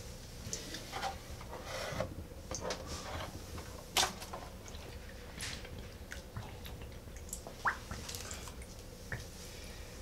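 Small splashes and drips of bathwater with light plastic knocks as a 3D-printed boat hull is set into a filled bathtub and adjusted by hand, with one sharper knock about four seconds in.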